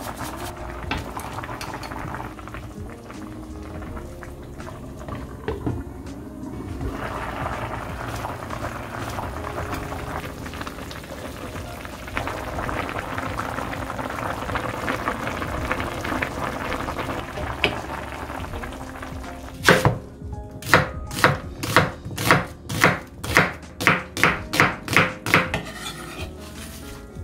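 Pan of taro soup bubbling at a boil, then, near the end, a kitchen knife chopping sliced onion on a plastic cutting board: a quick run of about a dozen sharp strokes, two to three a second.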